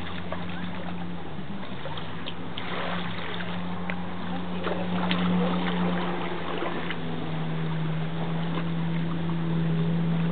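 Jet ski engine running steadily at speed, with the hiss of spray and wind over it.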